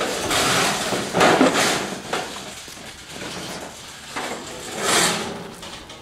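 Corrugated sheet-metal roofing panels being handled and moved, scraping and rattling in several noisy bursts, the loudest about a second in and again near five seconds.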